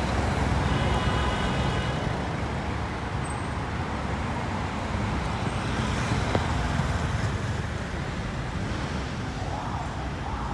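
Street traffic: motor scooters and minivans driving past, a steady mix of engine and tyre noise.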